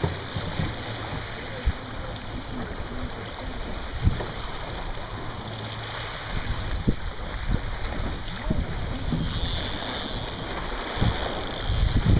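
Wind buffeting the microphone and water washing along the hull of a Sunfish sailing dinghy under way, with a few light knocks from the boat. The hiss grows stronger about three-quarters of the way through.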